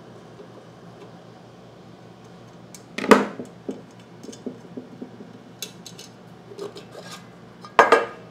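Handling of a pool pump motor's rear electrical cover and a screwdriver on a wooden workbench: a sharp clatter about three seconds in, light clicks and knocks after it, and another sharp clatter near the end.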